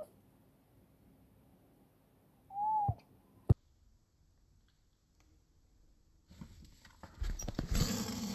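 A kitten's single short mew, falling at the end, about two and a half seconds in, then a sharp click. Near the end comes a louder stretch of rustling and knocking from the camera being jerked about.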